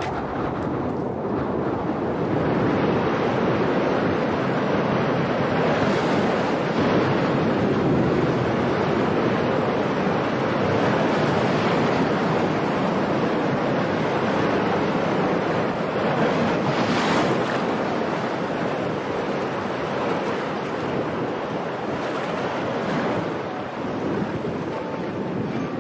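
Strong wind blowing in a steady rush, with gusts swelling about six seconds in and again around seventeen seconds.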